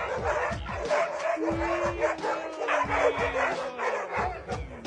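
Several dogs barking and yipping rapidly over one another, an excited jumble of barks.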